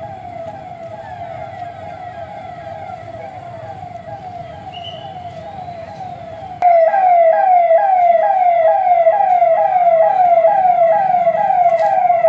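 Police siren sounding a fast repeating cycle of short rising sweeps, about two a second. A little over halfway through it suddenly becomes much louder and the low rumble underneath drops away.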